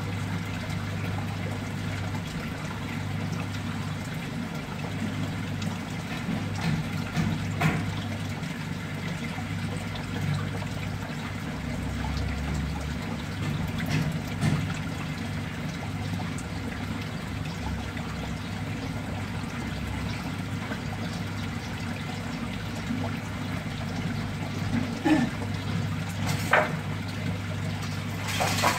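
Water trickling and splashing steadily into a shallow plastic tub, over a low steady hum. A few sharp clicks stand out, the loudest near the end.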